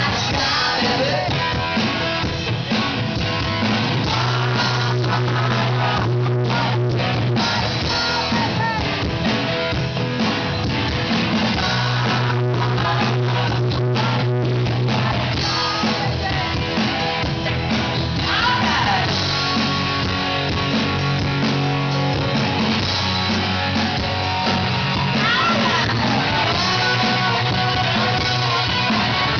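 Live hard rock band playing: electric guitar, bass and drums with a lead singer, heard from within the audience.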